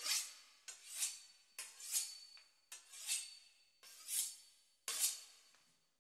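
A knife sawing through the crisp pastry crust of a beef Wellington, one crunchy, scraping stroke about every second, six strokes in all.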